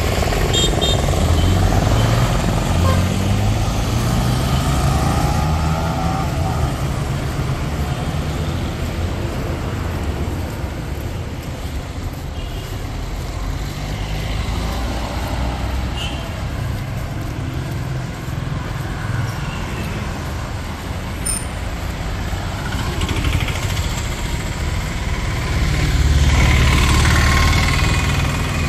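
Road traffic on a city street: motor vehicles running and passing, with one engine passing close in the first few seconds. Near the end an auto-rickshaw's engine grows louder as it comes up close.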